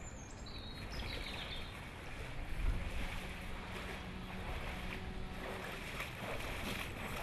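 Outdoor ambience over floodwater: wind buffeting the microphone with a low rumble and the wash of water. It includes a few short high chirps in the first second or so and a faint steady hum in the middle.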